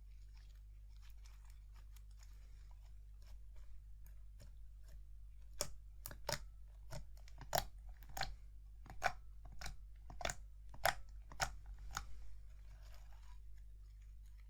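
Slime being handled: faint crackling, then from about five seconds in a run of sharp, crisp pops roughly twice a second that stop near the end.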